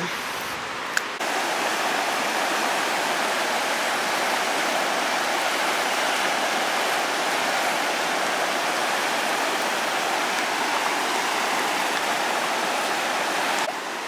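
Mountain river running over small rapids: a steady, loud rush of water that comes in suddenly about a second in.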